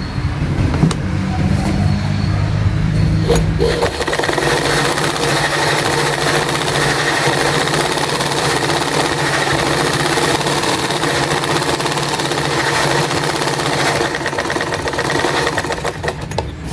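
Royal household sewing machine, driven by its belt-fitted electric motor, sewing a test seam on cloth after repair of its jamming (new shuttle hook and bobbin case, cleaned tension assembly). It runs steadily, changes to a denser, faster-sounding run about four seconds in, and stops just before the end.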